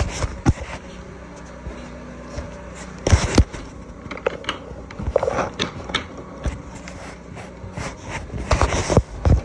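Handling noise: irregular knocks, taps and scrapes as the phone is moved and bumped against things, loudest in a cluster about three seconds in and again near the end.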